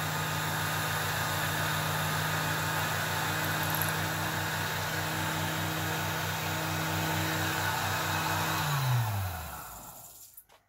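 Small metal lathe running steadily with a drill bit in its chuck boring the eyelet hole in a cello bow frog, then switched off: the motor's hum falls in pitch and dies away over the last two seconds.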